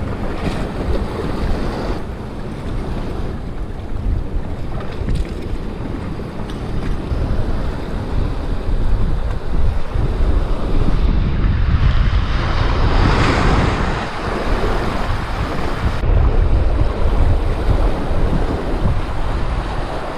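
Strong wind buffeting the microphone over surf washing against shoreline rocks. Roughly two thirds of the way through, a wave breaks and hisses over the rocks, then subsides.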